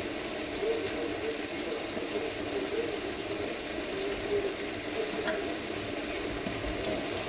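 Kitchen tap water running steadily into a sink as dishes are washed, with a light clink about five seconds in.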